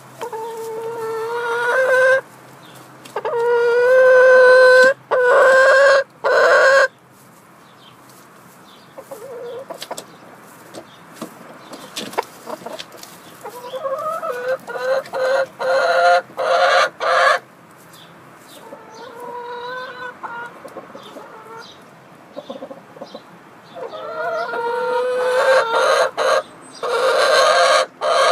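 Hens cackling loudly close by: repeated long, drawn-out calls of a second or two each, with short sharp clucks between them, coming in three spells: at the start, in the middle and near the end.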